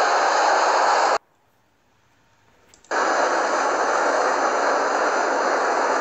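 Steady whirring machine noise. About a second in it cuts out abruptly to near silence for almost two seconds, then comes back at the same level.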